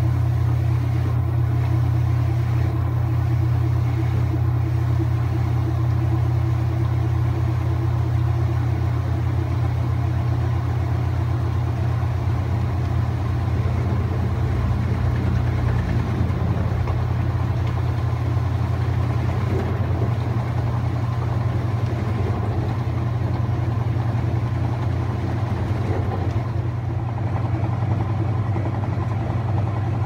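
Whirlpool 7LSR8244FQ1 top-load washing machine in its spin cycle, basket and agitator turning together: a steady low motor hum with the whir of the spinning tub.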